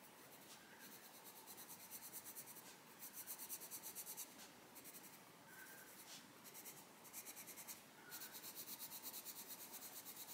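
Coloured pencil scribbling faintly on the paper of a colouring book in quick back-and-forth strokes, filling in gaps. The strokes come in runs of several a second with short pauses between, the longest run near the end.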